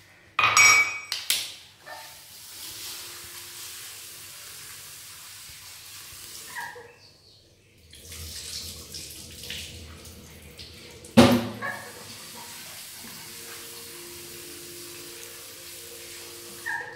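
Kitchen tap running into a stainless steel sink while yellow moong dal is rinsed in a plastic bowl and the rinse water is poured off. Clattering of bowls in the first second, a short break in the flow just past the middle, and a sharp knock about eleven seconds in.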